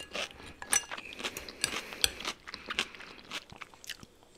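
Close-miked chewing of crunchy food: a quick, irregular run of crisp crunches and mouth clicks that thins out near the end.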